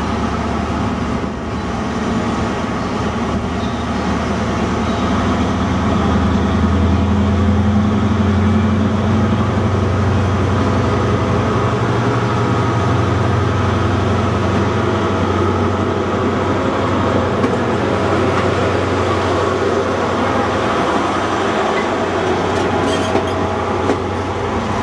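Diesel engine of a High Speed Train's Class 43 power car running as the train approaches and passes close by, its note rising a few seconds in.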